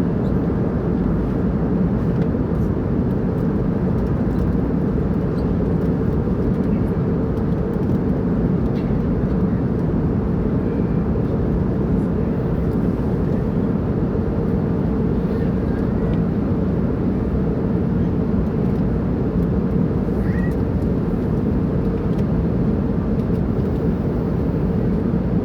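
Steady cabin drone of an airliner in flight: engine and airflow noise, deep and even, with a constant hum near its top.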